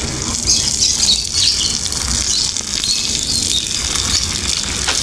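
Water from a garden hose spraying onto grass and a young goat being washed by hand, a steady hiss of spray.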